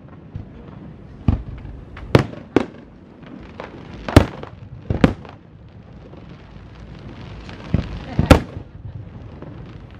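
Aerial firework shells bursting: about seven sharp bangs at irregular intervals, the loudest about four seconds in and shortly after eight seconds, over a low steady background hiss.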